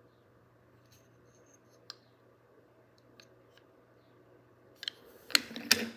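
Small toy railway cargo cars being handled on a countertop: a few faint clicks, then a quick flurry of louder clacks and knocks near the end as the cars knock together and against the counter.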